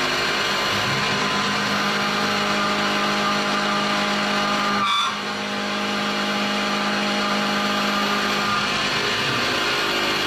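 CNC milling machine cutting a metal block with an end mill on an adaptive-clearing pass, under coolant mist: a loud, steady spindle and cutting noise with several steady tones over a dense hiss, and a brief break in the sound about five seconds in. This is the pass in which the toolpath dips where it crosses the hole and the cutter digs in and gouges the part.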